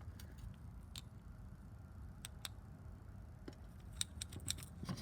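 Light clicks and taps of small parts from a spare-parts kit being handled and picked through, irregular and coming more often near the end, over a faint low hum.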